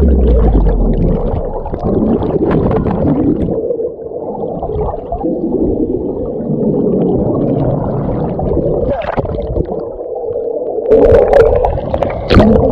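Underwater recording of bubbles and rushing water, gurgling and crackling, with a steady hum running through it. Near the end the splashing grows louder as the microphone nears the surface.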